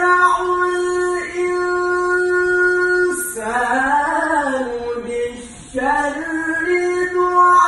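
A male qari chanting the Qur'an in a melodic, ornamented recitation. He holds one long high note for about three seconds, then sings a winding run that rises and falls away. After a short breath he starts a new held phrase.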